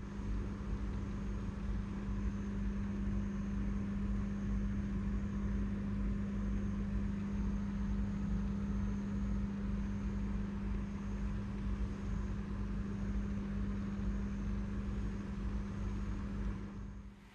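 A steady machine hum: a low rumble with one strong, unchanging mid-low tone, holding level throughout.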